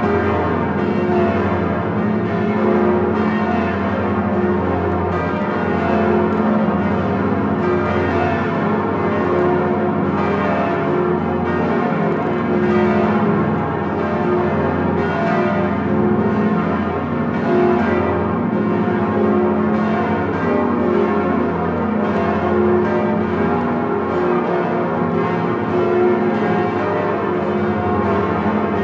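The swinging bells of Notre-Dame de Paris cathedral rung together in plenum, the Grand Solemnel peal. Many bells of different pitches strike over and over, their tones overlapping in a dense, continuous clangour, with a large bell swinging close by.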